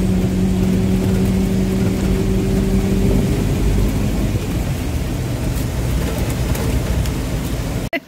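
Minivan's engine running and road noise heard from inside the cabin. A steady low engine hum fades out about halfway through, leaving a rumbling drone.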